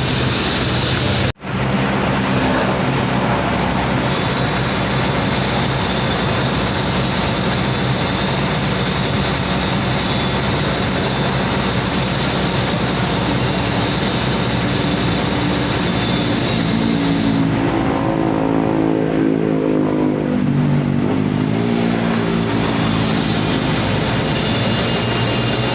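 Komatsu PC200 excavator's diesel engine running steadily under working load, with a steady high tone above it. Between about 17 and 22 seconds the pitch rises and falls as the machine works harder. There is a momentary dropout about a second in.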